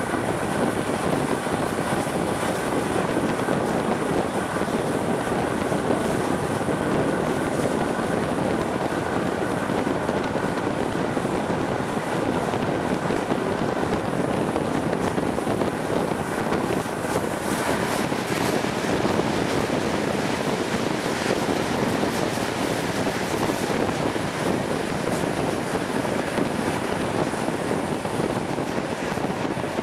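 Steady running noise of a train hauled by a DB V100 (class 212) diesel locomotive, heard at an open coach window: a continuous rumble of wheels on rails mixed with wind rushing past the microphone.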